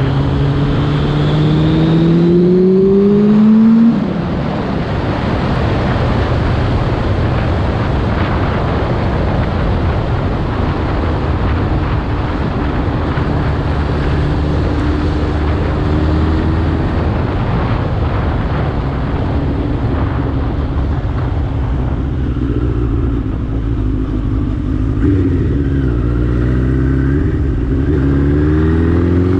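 Suzuki GSX-R inline-four motorcycle engine under way. It rises in pitch as it accelerates, drops about four seconds in, then runs steadily under a heavy rush of wind. It rises again near the end.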